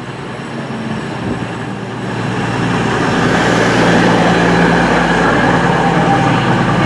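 Diesel train's engine and rail rumble growing louder over the first few seconds, then running steadily at close range.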